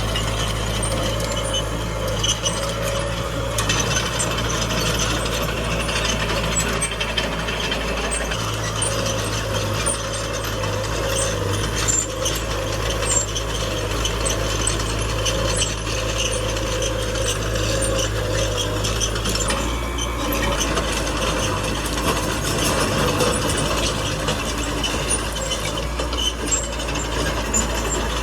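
Small crawler bulldozer at work: its diesel engine runs steadily under a continuous clatter of steel tracks and machinery.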